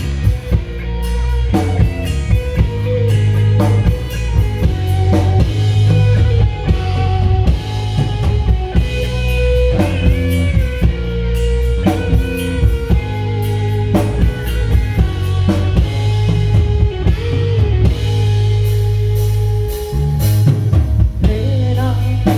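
Rock band playing an instrumental intro: drum kit, a sustained guitar lead line with bent notes, and heavy bass, with no vocals yet.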